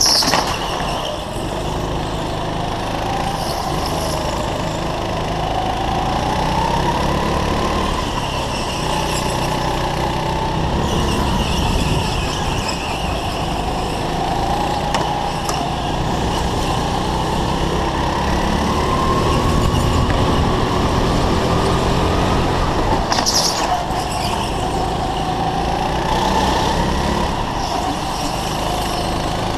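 Go-kart engine running hard from the driver's seat, its pitch rising and falling as the throttle opens on the straights and eases through the corners. A short high-pitched burst cuts in at the start and again about 23 seconds in.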